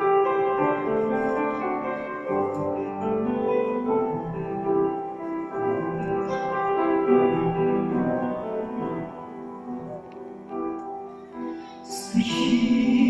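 Instrumental introduction played on piano or keyboard, slow held chords, with female voices starting to sing near the end.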